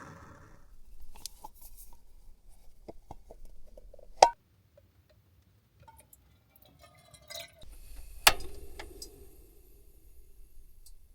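Small clinks and clicks of cookware and dishes being handled, with two sharper knocks, about four seconds in and again near eight seconds; the second leaves a short ring that fades away.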